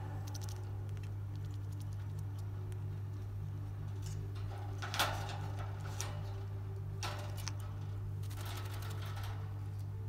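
Scattered light clicks and rattles of an African grey parrot clambering about its wire cage, over a steady low hum. The sharpest click comes about five seconds in, with a cluster of faint clicks near the end.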